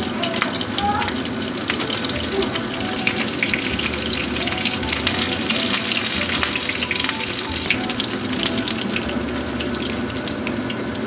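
Pieces of Spanish mackerel sizzling and crackling as they pan-fry in hot oil in a frying pan, a steady spatter of fine irregular pops.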